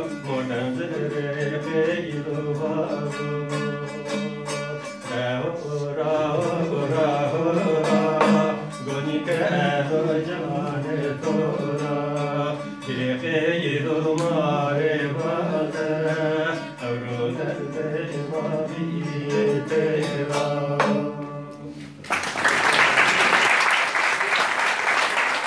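A man singing a folk song to his own bağlama, a long-necked Turkish lute. The song ends about 22 seconds in, and applause follows.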